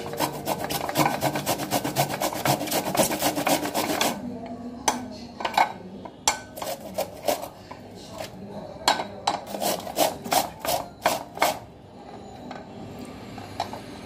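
Green bell pepper (capsicum) grated on a flat metal grater: rasping strokes, fast and close together for the first four seconds, then slower, spaced strokes that die down near the end.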